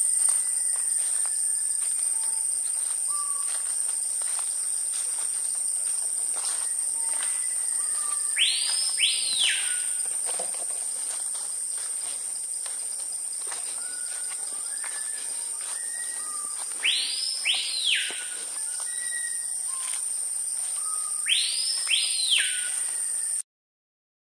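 Tropical forest insects keep up one steady, high-pitched drone while a bird gives loud whistled calls, each a pair of notes that swoop up and back down, repeated every four to five seconds, with short softer whistles in between. The sound cuts off abruptly about a second before the end.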